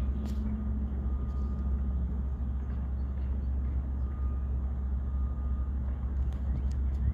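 A steady low engine hum, as of a vehicle idling.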